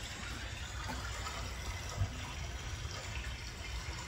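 Steady running water, with a faint knock about two seconds in.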